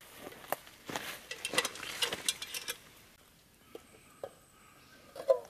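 Footsteps crunching through dry leaf litter and stones for about the first three seconds. Then a metal mess tin is dipped into a shallow stream, with a few small clicks and splashes and a louder gurgle of water near the end.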